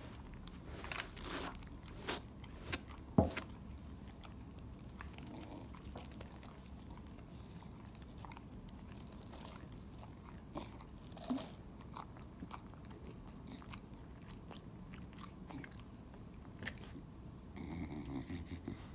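Chow Chow chewing a treat: irregular crunches and mouth clicks, the loudest a sharp crunch about three seconds in.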